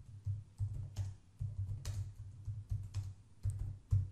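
Typing on a computer keyboard: irregular key clicks, each with a soft low thump, as a short line of text is typed.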